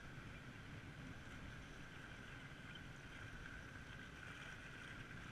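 Faint, steady outdoor noise of sea water washing around rocks, with some wind on the microphone.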